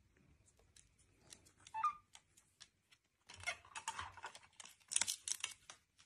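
Faint, irregular clicking and tapping of a white-bellied caique's beak and feet working a small plastic toy door open, sparse at first and coming in quick clusters in the second half. A brief small squeak about two seconds in.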